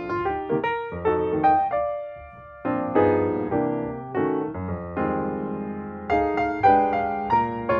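Background piano music, with notes and chords struck and left to ring in slow phrases.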